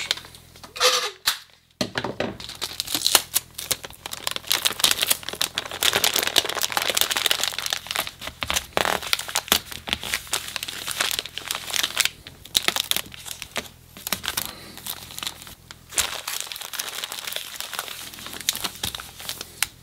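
Clear plastic grow bag of mushroom substrate crinkling and rustling as hands squeeze the air out and fold its top down, in irregular crackly bursts throughout.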